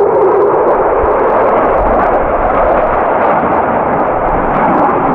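Fighter jet flying past at low level: a loud, steady roar of jet engines that swells in just before and holds, with a rough crackle.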